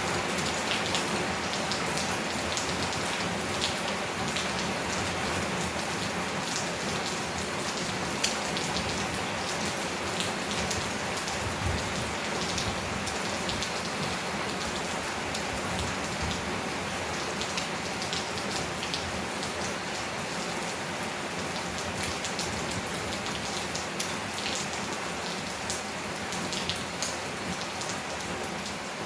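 Steady heavy rain falling on a tin roof and leaves, with scattered sharp drip ticks over an even hiss.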